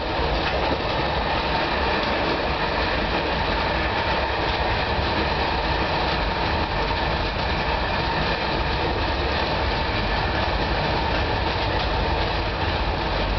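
Steady wheel and track noise of a British Rail 4-VEP (Class 423) electric multiple unit running at speed, heard from inside its rear cab.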